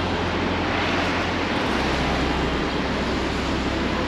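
Steady city street noise: the even rush of traffic on a wide avenue, with a low rumble underneath.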